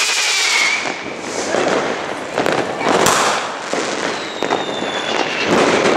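New Year's Eve fireworks going off: rockets and firecrackers making a dense run of bangs and crackling, with a thin whistle from a rocket near the start.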